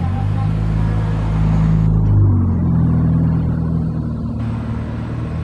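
Tour bus engine running as it passes, a low drone that is loudest a little over two seconds in, where its pitch steps up.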